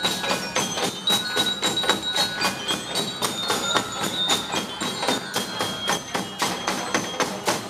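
School marching drum corps playing snare and bass drums in a fast, even beat, with high bell-like notes ringing over the drumming. The drumming stops abruptly at the very end.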